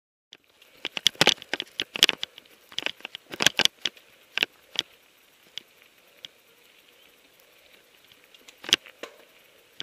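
A helmet camera rattling and knocking in a poorly fitted mount while riding a mountain bike up a rough trail. There is a fast run of sharp clicks and knocks for the first few seconds, then sparser knocks with one loud knock near the end, over a faint steady hiss.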